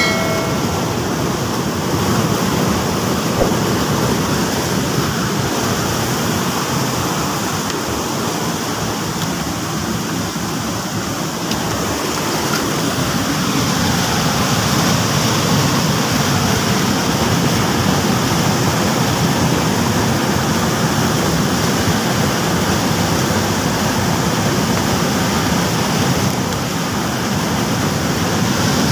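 Steady rushing of stream water over rocks at a rapid.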